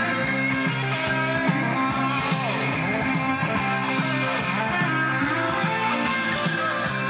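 Background music led by guitar, with strummed and plucked guitar parts at a steady level.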